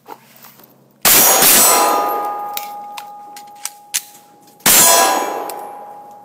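Pistol shots about a second in and again near the end. Each is followed by a long ringing tone that slowly dies away, the sound of a hit steel target. Between them come a few sharp clicks as the pistol is reloaded from a magazine pouch.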